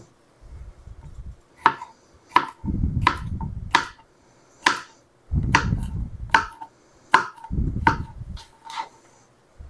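Kitchen knife slicing small cucumbers into chunks on a plastic cutting board: a sharp knock each time the blade meets the board, about one a second, with dull low thuds between.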